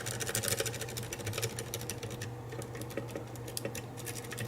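Medusa rake being scrubbed rapidly in and out of a pin-tumbler lock's keyway, the metal pick rattling over the pins in a fast run of light clicks. A steady low electrical hum runs underneath.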